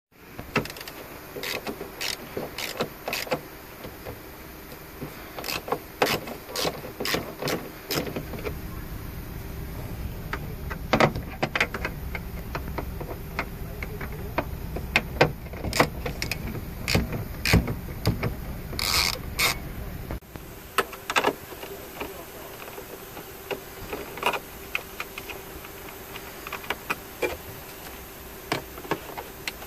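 Hand ratchet wrench clicking in short irregular runs, with tools and socket knocking against metal and plastic, as the tail lamp's retaining nuts are worked loose.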